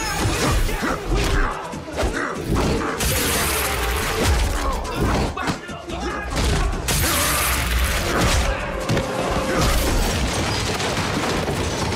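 TV fight-scene sound effects: a quick run of hits and thuds with crashing and shattering, under an action music score.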